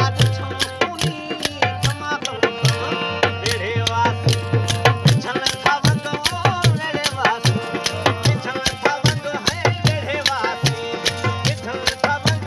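Live Sindhi Sufi folk music: a dholak drummed in a quick, steady beat under sustained harmonium-like held chords, with a man's singing voice joining in places.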